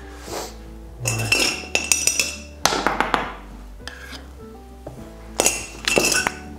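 A metal spoon clinking and scraping against a ceramic mixing bowl in several short bouts, over background music with held notes.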